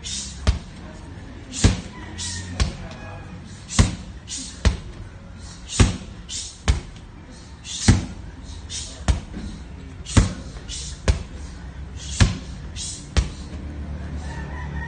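Medicine ball thrown hard against a wall and caught, over and over: a sharp smack about every second, a louder one roughly every two seconds.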